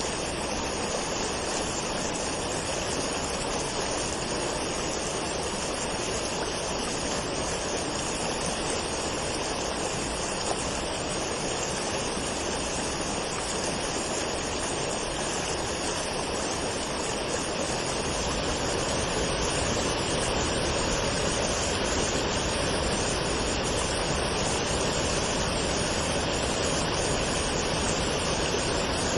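Waterfall: a steady, even rush of falling water with no breaks. It grows slightly louder and fuller in the low end about two-thirds of the way through.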